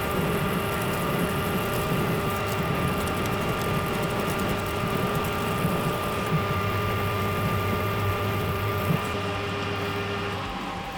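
Metal lathe running steadily, turning down the end of a high-tensile steel barbell shaft, with a constant gearbox whine over a low motor rumble. The sound begins to die away near the end.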